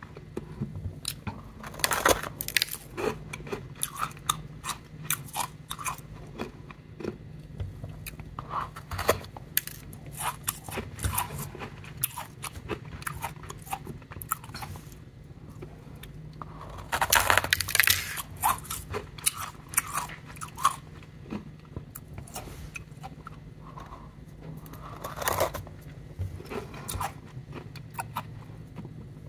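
Powdery ice being packed and squeezed between gloved hands: close, irregular crunching and crackling, with louder runs of crunches about two seconds in, around the middle and again near the end. A faint steady low hum lies underneath.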